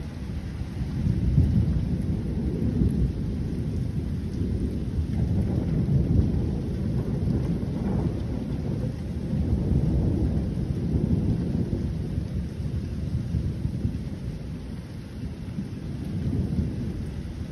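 Thunder rolling in a long, deep rumble that swells and fades several times, loudest about a second or two in, over a faint steady hiss.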